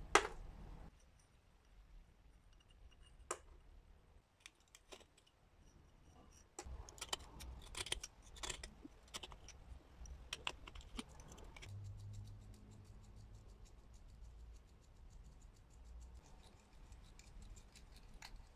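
Small steel blade scraping and picking at thick crusted rust on a pair of old pliers, making irregular clicks and scratchy scrapes that are densest in the middle and lighter near the end. A single sharp click just after the start is the loudest sound.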